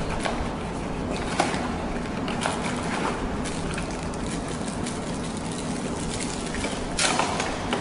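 Cardboard box and plastic-bagged cables being handled: scattered light knocks and rustles, with a louder crinkle near the end, over a steady background hum.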